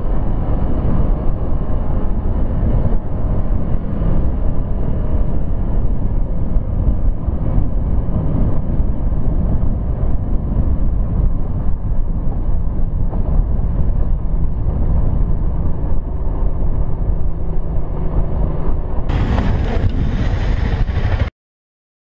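Motorcycle engine running under way, with heavy wind rush over a helmet-mounted camera. Near the end a different, brighter sound takes over briefly, then everything cuts off to silence.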